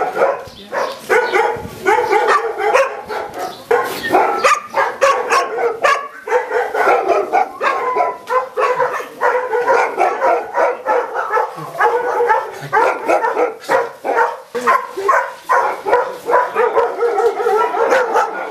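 A pack of kennelled shelter dogs barking at once, short overlapping barks in a dense, unbroken din.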